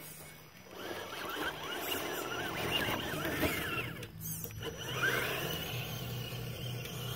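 Axial AX10 Deadbolt RC crawler's electric motor and metal-geared transmission whining, the pitch rising and falling with the throttle, with a short pause a little past halfway.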